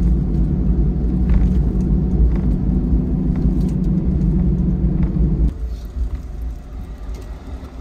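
Low road and engine rumble inside a moving kei van. It drops away suddenly about five and a half seconds in, leaving a quieter low rumble.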